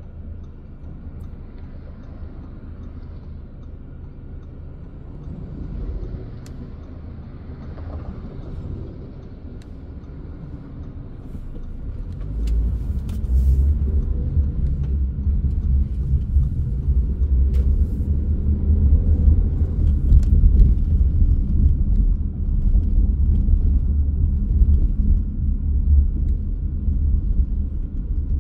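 Low rumble of a car driving, heard from inside the car, mostly road and engine noise. It grows much louder and heavier about twelve seconds in.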